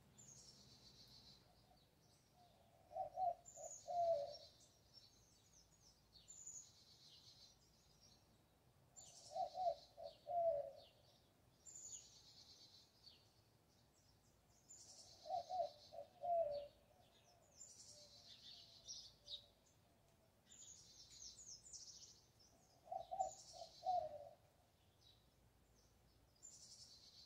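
Birds singing: a high, trilling song repeated every two to three seconds, and a lower call of three or four quick notes about every six seconds, which is the loudest sound.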